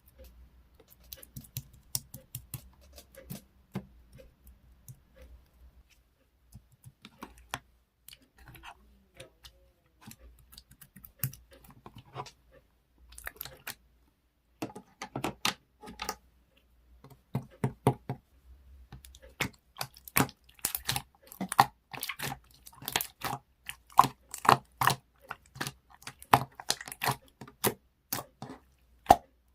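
Slime being squished and poked by hand, giving a string of sticky clicks and small pops. They are sparse at first, then come thicker and louder from about halfway.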